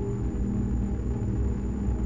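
Ambient electronic music slowed fivefold by granular synthesis: a deep, grainy drone of low sustained tones at a constant level, with a faint steady high tone above it.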